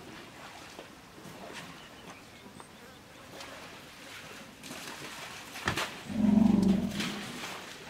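A fly or similar insect buzzing close to the microphone, loudest for about a second near six seconds in, over a faint outdoor background with a few soft clicks.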